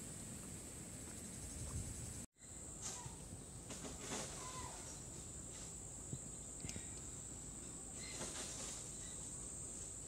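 Insects trilling in a steady, continuous high-pitched drone, with a few short chirps over it. The sound drops out for an instant about two seconds in, then comes back.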